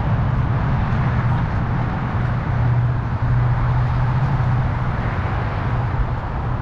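Wind rushing over a helmet-mounted GoPro Hero9's microphone while cycling, mixed with tyre rumble on concrete and a steady low hum underneath.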